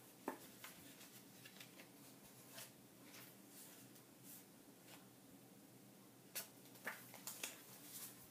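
Faint rustling and flicking of a stack of photo prints being leafed through by hand, with scattered soft paper clicks that come a little closer together near the end.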